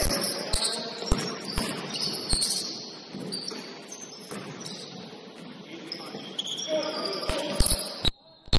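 Basketball bouncing on a gym floor, about two bounces a second at first, then a quieter stretch with voices in the hall and a few more bounces near the end. The sound drops out briefly just before the end.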